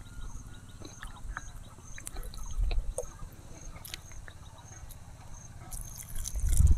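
Water poured from a plastic bottle splashing onto dry soil near the end, over a low wind rumble on the microphone and an insect chirping about twice a second.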